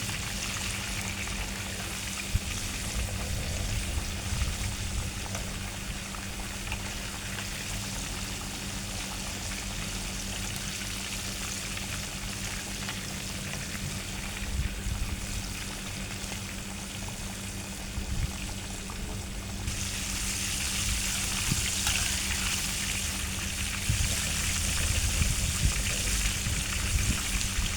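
A whole chicken deep-frying in hot oil: a steady sizzle that grows louder and brighter about two-thirds of the way through.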